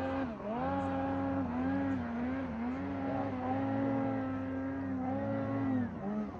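Snowmobile engine revving hard under load on a steep powder slope, its pitch wavering with the throttle. The revs dip sharply about a third of a second in and again near the end.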